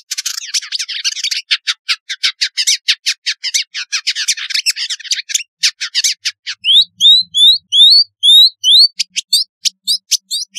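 Village indigobird singing: a fast run of dry, chattering notes, then from a little past the middle about seven clear whistles that each rise in pitch, about three a second, before the quick chatter returns near the end.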